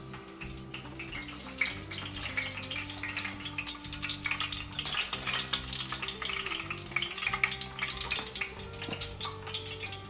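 Hot oil sizzling and crackling around half an onion and two garlic cloves in a deep pan, over background music with held notes.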